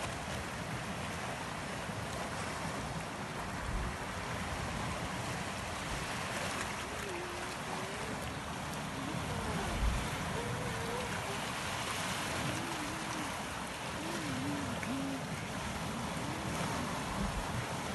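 Sea waves washing over a rocky shoreline, a steady rushing, with wind buffeting the microphone in low gusts, strongest about four seconds in and again near ten seconds. A faint wavering pitched sound comes and goes in the background.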